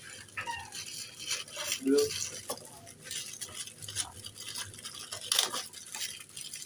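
Rustling and light clinking from a microphone arm clamp being unpacked and handled, with many short crackly clicks.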